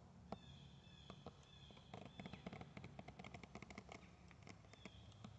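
Near-silent woodland ambience: faint scattered ticks and a few thin, high bird calls, one near the start and another about four and a half seconds in.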